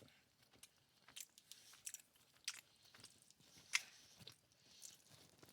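Close-miked chewing of crispy, glazed orange chicken: faint, irregular crunches and wet mouth clicks.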